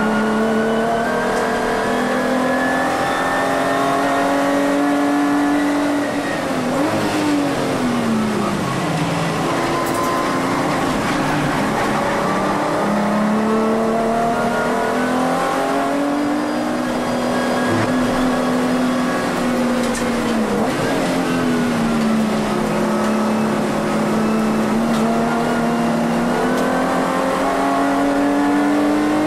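Volkswagen Vento VR6 race car's VR6 engine at racing speed, heard from inside the cabin. Its note climbs steadily through each gear and drops abruptly at the gear changes, with a deeper fall in pitch about seven seconds in.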